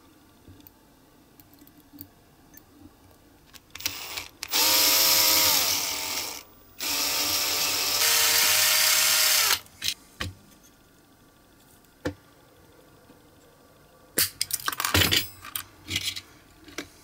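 Electric drill with a small bit drilling into a diecast metal model car body, in two runs of a few seconds each. The motor's whine drops in pitch as the first run slows. Near the end come a few sharp clicks and rattles of small metal parts being handled.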